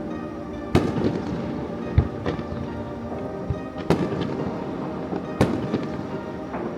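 Aerial fireworks bursting: about five sharp bangs a second or so apart, with smaller crackling pops between them, over pop music.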